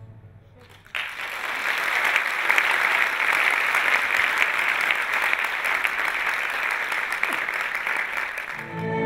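Audience applauding. It breaks out suddenly about a second in, holds steady, and dies away near the end as the next music begins.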